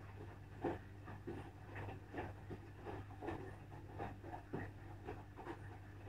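Asko front-loading washing machine running a wash cycle at tumbling speed: a steady low motor hum under soft, irregular swishes and light thumps of the laundry turning over in the drum.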